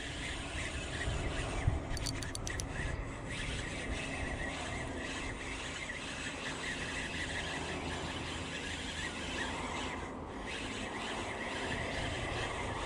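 Spinning reel being cranked while reeling in a hooked fish, running noisily with a steady, faintly pulsing high-pitched whine; the reel is noisy because it had been dropped in the water.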